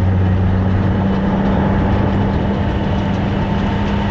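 Engine running steadily at a constant speed: a loud, even low hum with a rattly noise over it.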